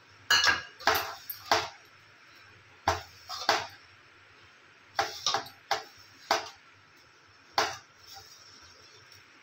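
Hand kneading stiff maida dough in a bowl: about ten sharp, irregularly spaced knocks and clinks as the hand presses the dough against the bowl.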